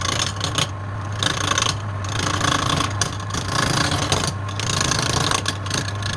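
Wood lathe motor running with a steady hum while a tool scrapes and rasps against the spinning wood, the rasping coming and going in uneven strokes.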